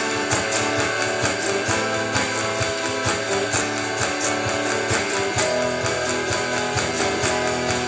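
Live band music: strummed and picked guitar over a steady drum beat, an instrumental passage with no singing.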